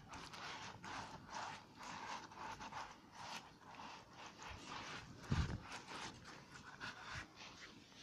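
Gloved hand smearing wet clay over a clay furnace's shrinkage cracks: a quick, irregular run of wiping and rubbing strokes, with a heavier thump about five seconds in.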